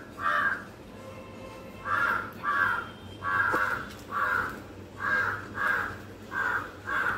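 A crow cawing repeatedly: about nine harsh caws, mostly in pairs roughly half a second apart.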